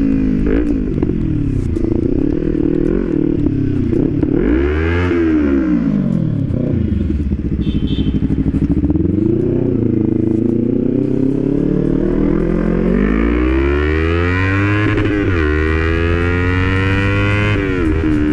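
Kawasaki Ninja 300's parallel-twin engine running through an aftermarket SC Project exhaust while riding, the revs climbing and dropping several times, with a rise and fall about four to five seconds in and more from about thirteen seconds in.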